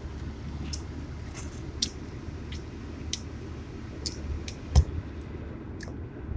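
Car cabin noise while driving: a steady low rumble of road and engine, with scattered light clicks and one sharp knock nearly five seconds in.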